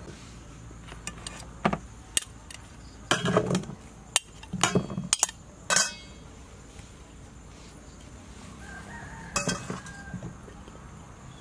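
Irregular sharp clicks and clinks over a steady low hum. Most come in a cluster in the first half, with a few more near the end.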